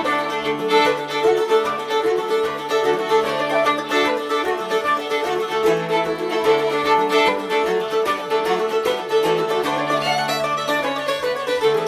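An Irish traditional jig played by flute, fiddle, mandolin and bouzouki together, the melody instruments in unison over strummed bouzouki chords.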